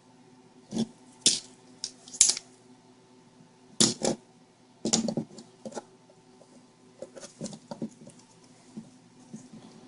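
Irregular small clicks and taps of hand tools (soldering iron, solder, tweezers) against a circuit board during fine soldering work. The sharper knocks fall in the first half and lighter ticks follow, over a faint steady hum.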